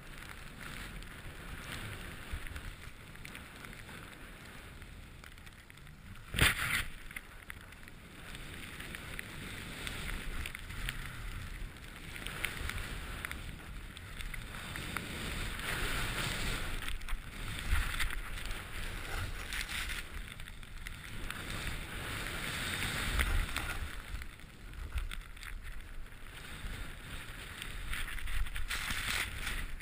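Rushing hiss of a rider carving through deep powder snow, swelling and fading with each turn, with wind rushing over the body-worn camera's microphone. A single sharp knock about six and a half seconds in.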